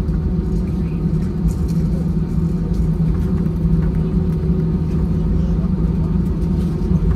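Cabin noise inside an Airbus A320 taxiing after landing: a steady low rumble and hum from the engines at taxi power and the aircraft rolling along the taxiway.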